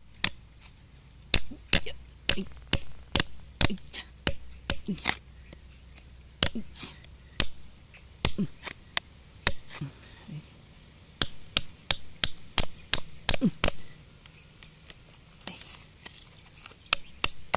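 Metal chisel tapping and chipping at crumbly rock around an embedded stone: a run of sharp, irregular knocks, a few a second, with a lull of about a second and a half near the end.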